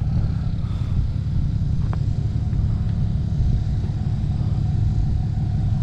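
Pickup truck's engine running, a steady low rumble.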